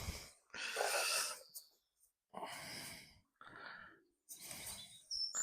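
A person breathing out heavily close to the microphone, four or five breaths about a second each with short pauses between.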